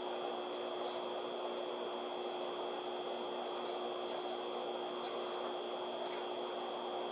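Steady interior hum of a Tokaido Shinkansen Kodama carriage, with a constant low tone and a constant high tone and a few faint ticks.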